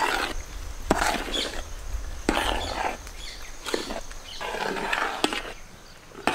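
Hands mixing a dry, crumbly mix of crushed chocolate biscuits, flour and cocoa in a large metal pot: rhythmic rustling scrapes about every second and a half, each starting with a sharp click, over a low rumble in the first half.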